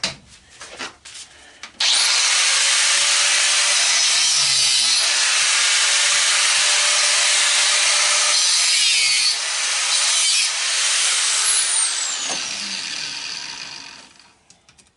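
Power tool cutting through a band: it starts abruptly about two seconds in, runs loud and steady for about ten seconds, then winds down and fades out.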